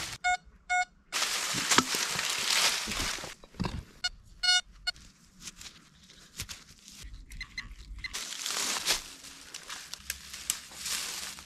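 Metal detector beeping: two short electronic tones about half a second apart, then a quick run of beeps about four seconds in. Between and after them, rustling and scraping in dry brush and soil.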